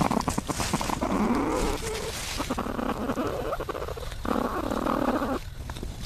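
Platypuses stirring in their nesting burrow, heard through a microphone inside the chamber: rough, throaty animal sounds with scratching and rustling of nest material. The sounds come in three long stretches and stop shortly before the end.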